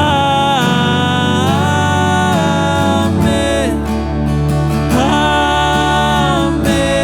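Worship band music with acoustic guitar, a voice holding long sung notes that slide between pitches without words.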